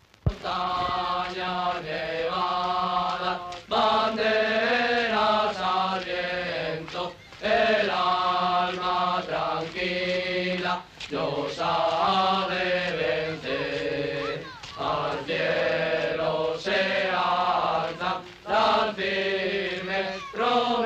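A group of voices singing together in chorus, in phrases of a few seconds, each separated by a short breath-like gap.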